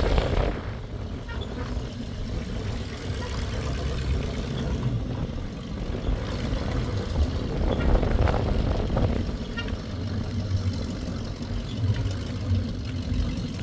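Engine of an old square-body dump truck running as the truck drives slowly across a dirt yard, a steady low rumble that swells a little about two-thirds of the way through.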